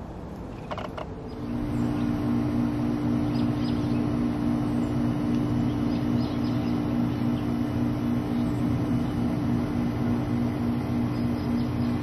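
A steady low mechanical hum with an even pulse, like an engine idling, starts suddenly about a second in and runs on. A few faint, short, high bird chirps sound over it.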